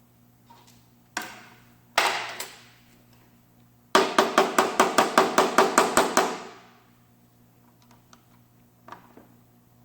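Hammer blows: two single strikes, then a quick even run of about fourteen strikes at about six a second, each ringing briefly.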